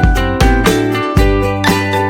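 Background music with a steady beat: plucked, guitar-like notes over a regular drum pulse.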